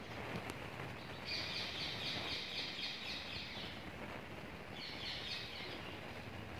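A bird calling in two bouts of fast, high chattering notes, about four a second, over a steady outdoor background hiss.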